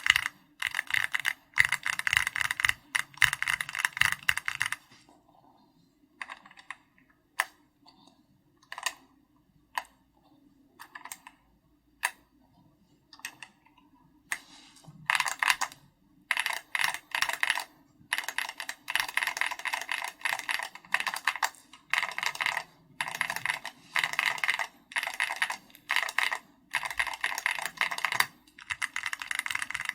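Typing on a custom mechanical keyboard, an SPM AL66B case with Keychron Red linear switches and XVX keycaps. A fast run of keystrokes gives way after about five seconds to some ten seconds of scattered single keypresses, then steady fast typing resumes from about fifteen seconds in.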